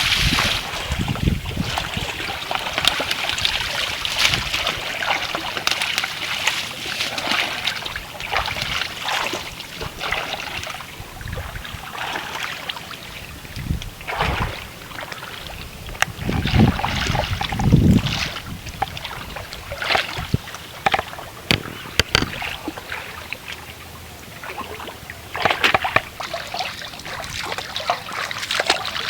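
Water splashing and sloshing irregularly as people work in shallow water, with a few heavier splashes about two-thirds of the way through.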